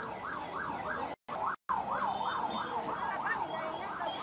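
Electronic siren in a fast wail, its pitch sweeping up and down about three times a second. It cuts out twice briefly just over a second in.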